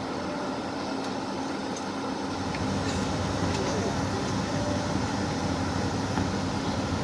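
Steady cabin hum inside a Boeing 757-200 as it is pushed back from the gate: ventilation air and a steady low tone, with a low rumble growing louder about two and a half seconds in.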